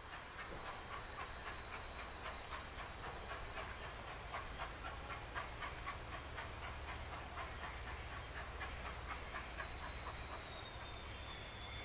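SNCF 141R 2-8-2 steam locomotive working a train, its exhaust chuffing in a steady rhythm of about three to four beats a second. A thin, high, steady whine runs above the beats and drops slightly in pitch near the end.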